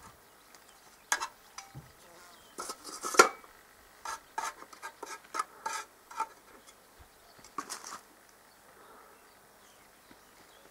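Honeybee swarm buzzing faintly, with a run of short sharp clicks and chirps over it, most of them in the first eight seconds.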